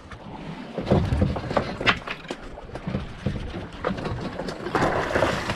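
Irregular mechanical clicks and knocks from a conventional jigging reel, a Shimano Ocea Jigger, being cranked and handled while a fish is played on a bent rod. A short rush of hiss comes about five seconds in.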